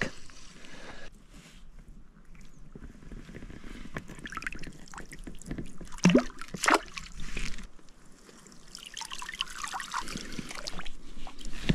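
Shallow lake water sloshing and dribbling as a stick is pushed into it and moved about among sunken branches, with scattered knocks and rustles and two louder splashes a little past halfway.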